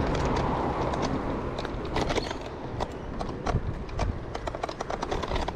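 Kaabo Wolf Warrior electric scooter on the move, with a steady rush of wind and tyre noise. From about a second and a half in come irregular rattling clicks and knocks.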